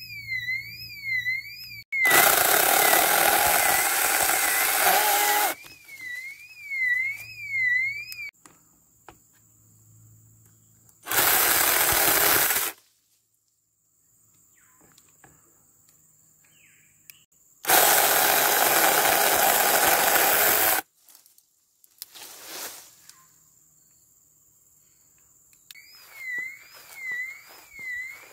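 Battery-powered 4-inch mini chainsaw cutting through tree branches in three bursts of about three, one and a half, and three seconds, each starting and stopping suddenly. Between cuts a faint warbling tone wavers evenly.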